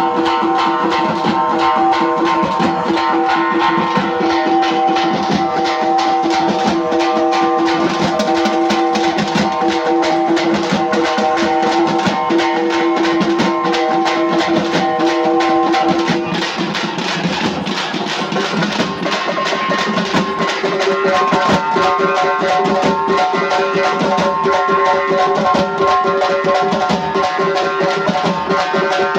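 Loud music of a street drum troupe: large drums beaten in a fast, dense rhythm under a steady held melody, whose pitches change about halfway through.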